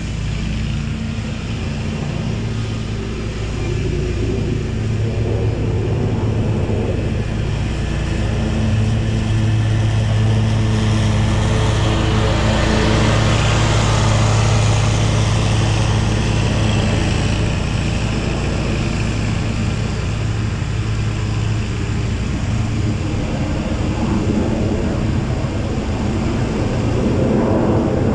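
A jet aircraft passing over: a rushing noise that swells to a peak about halfway through and fades, falling in pitch, over a steady engine drone.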